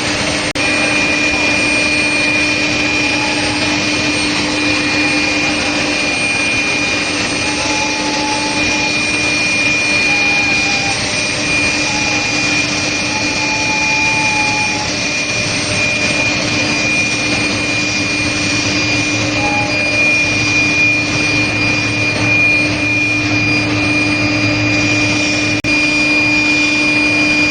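Steel plate induction hardening machine running: a steady, loud rushing noise with a constant high-pitched whine.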